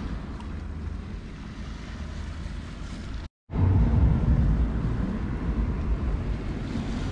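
Wind buffeting the microphone on an open seashore, a steady low rumble with some sea noise behind it. It cuts out for a moment about three seconds in and comes back louder.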